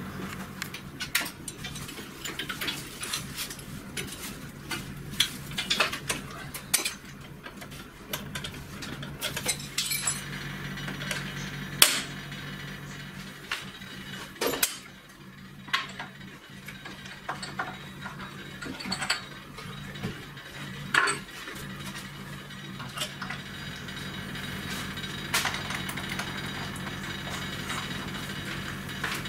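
Metal tooling being handled at a milling-drilling machine's spindle: a collet holder with an end mill and a drill chuck clinking, clicking and knocking irregularly, with a few sharper knocks. A steady low hum runs underneath.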